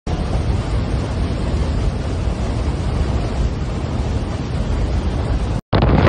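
Strong blizzard wind blowing steadily, a dense rushing noise with no gusts or breaks; it cuts off abruptly near the end.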